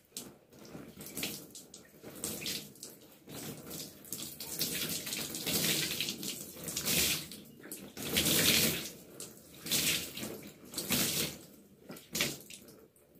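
Water pouring and splashing over hair into a bathtub in uneven surges, as the hair is rinsed with diluted apple cider vinegar.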